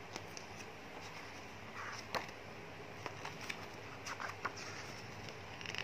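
Pages of a photo book being turned and handled: soft paper rustles and small clicks, the sharpest about two seconds in, over a faint steady hum.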